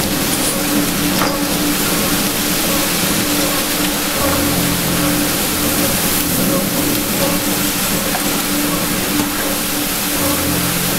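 Heavy rain and storm wind as a loud, continuous hiss, with a steady low hum underneath that drops out and returns a few times.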